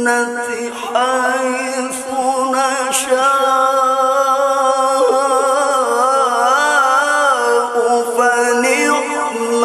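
A man reciting the Qur'an solo in the melodic, ornamented qari style, sung into a microphone. He holds long drawn-out notes with quick trilling ornaments, with short breaks for breath about halfway and near the end.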